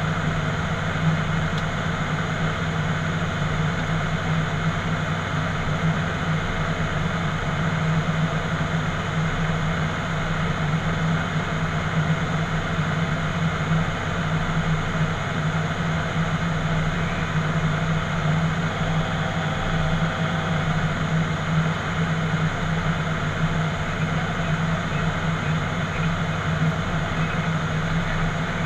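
Cockpit noise of an ATR 72-600 turboprop airliner in flight: a steady low drone from its twin Pratt & Whitney PW127 turboprop engines and propellers, with a constant rush of air over the airframe.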